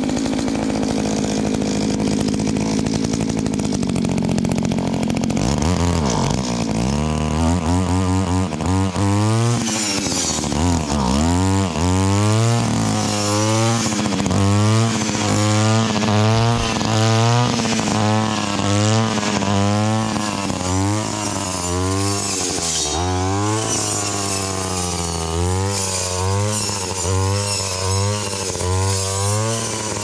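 Brush cutter's small engine running steadily at first. From about five seconds in it revs up and falls back roughly once a second as the blade is swung through the grass.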